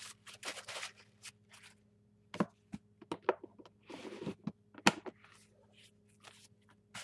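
Handling sounds at a craft table: brief rustles and scrapes with a few sharp clicks or knocks, the loudest about two and a half seconds in and just before the five-second mark, over a faint steady hum.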